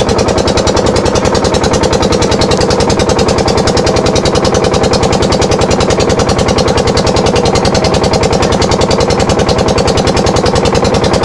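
Small riverboat's inboard engine running steadily under way, with a rapid, even pulse and a steady hum.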